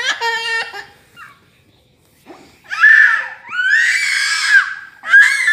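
Baby crying: after a brief lull, long high-pitched screaming wails in the second half, with another wail starting near the end.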